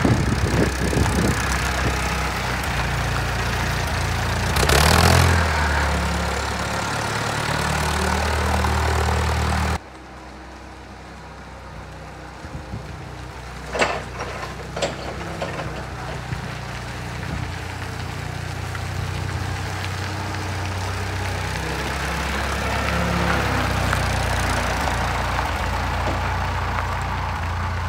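LPG-fuelled forklift engine running as the truck drives about, with a brief louder surge about five seconds in. After a sudden drop the engine sounds distant, with a couple of sharp knocks, and then grows steadily louder as the forklift comes back close.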